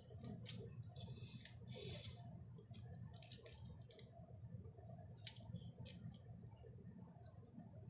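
Faint, irregular clicks and taps of a small plastic puzzle cube being handled, over a low steady hum.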